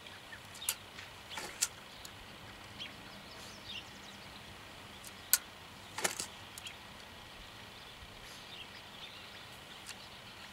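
A few sharp clicks from a slow golf practice swing along a swing-plane trainer: a single loud click about five seconds in, then a brief clatter just under a second later. These sit over steady outdoor background noise with faint high chirps.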